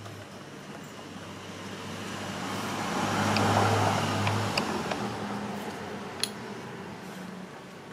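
A vehicle passing by: a rushing noise with a steady low hum that swells to a peak about halfway through and fades away. A few light ticks and one sharp click a little after six seconds in come from work on the mirror housing.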